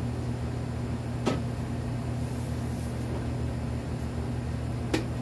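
Steady low mechanical hum, with two light clicks, one about a second in and one near the end.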